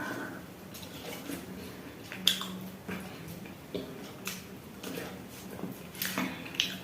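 Close-miked mukbang eating sounds: wet chewing and lip smacking of goat meat and dhido, with scattered small clicks and one sharper click about two seconds in.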